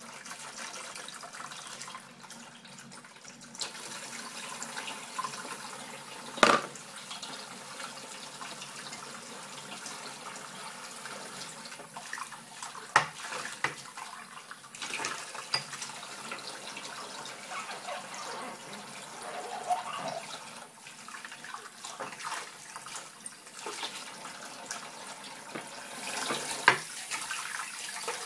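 Kitchen tap running steadily into a stainless-steel sink of dishes while a glass and crockery are rinsed by hand under the stream. Occasional sharp clinks of dishes and glass knocking together, the loudest about a quarter of the way in, near the middle and near the end.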